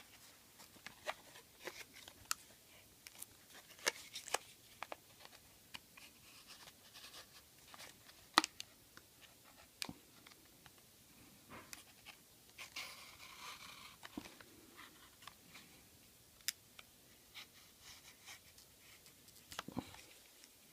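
Scattered light clicks and taps with a brief rustle about halfway through: a padlock and its keys being handled close up, metal ticking against metal.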